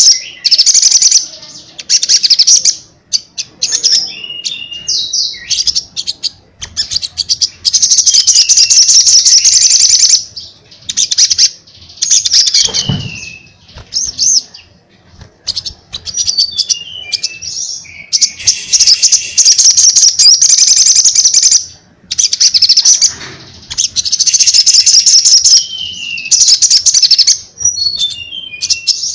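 Caged male sunbird singing loudly in repeated bursts of rapid, high trills, with short falling whistled notes between them and brief pauses.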